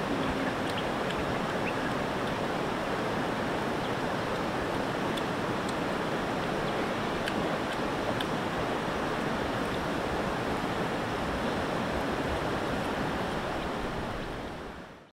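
River water running steadily, an even rush with a few faint ticks, fading out near the end.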